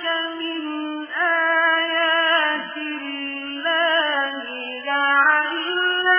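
Quran recitation: a single unaccompanied voice chanting Arabic verses in a melodic style, holding long, ornamented notes with short breaks between phrases.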